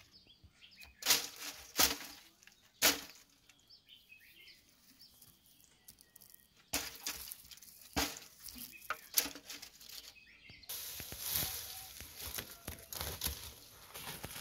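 Dry fuel clods knocking and crumbling as they are handled and dropped onto twigs in a pit tandoor, with three sharp knocks in the first three seconds and more knocks and scraping later. Near the end comes a steady rustle of dry leaves being shaken out of a woven sack into the oven.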